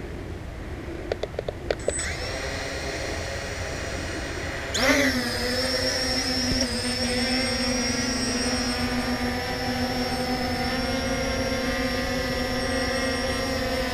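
Ao Sen Ma CG035 quadcopter's brushless motors: after a few quick clicks they spin up to a steady whine, then about five seconds in jump sharply in pitch and loudness as the drone takes off automatically, settling into a steady hovering whine.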